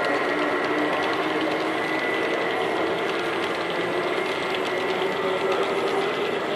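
H0-scale model train running past on its track: the small motor whirs and the wheels clatter lightly over the rails, a steady mechanical sound with faint clicks.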